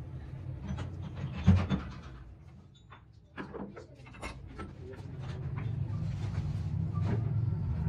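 Metal clinks and knocks from steel hand tools and a small steel valve part being worked in a bench vise, over a steady low hum. One sharp knock comes about a second and a half in.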